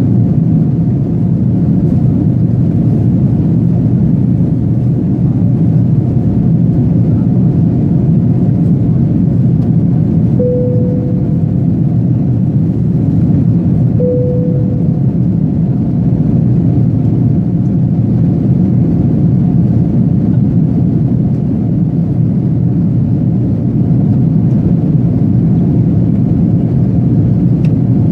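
Steady low cabin noise of a jet airliner's engines and airflow, heard inside the cabin at a window seat during the climb after takeoff. About ten seconds in, and again some four seconds later, a short single-note chime sounds and fades.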